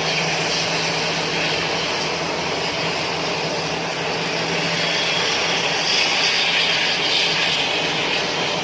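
Airliner jet engines running steadily at an airport: a continuous hiss with a steady low hum, no sharp events.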